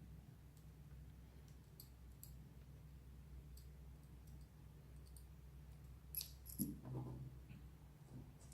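Faint light clicks and ticks from small laptop parts and screws being handled during reassembly, with two louder clicks about six seconds in.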